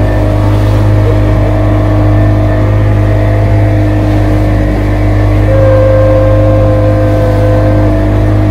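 Motorboat engine running at a steady speed under way, a loud, even drone.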